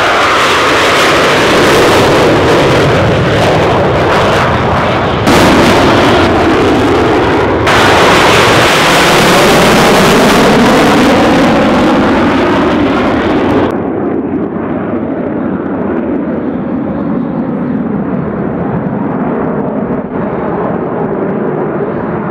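A formation of KAI T-50B Golden Eagle jet trainers, each with a single F404 turbofan, flying low and loud just after takeoff. The roar sweeps in pitch as they pass overhead. About two-thirds of the way in it turns abruptly quieter and duller as the jets climb away.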